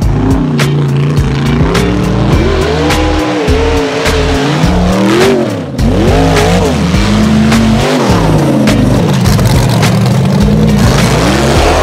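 Rock bouncer tube buggy's engine revving hard under load as it climbs a steep, rocky dirt hill, its pitch rising and falling again and again, with a brief lift off the throttle about halfway through.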